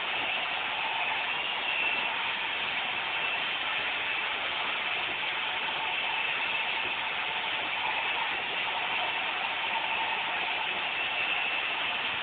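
Roomba robot vacuum running, a steady whirring hiss of its vacuum motor and brushes with a faint steady whine, as it tries to dock.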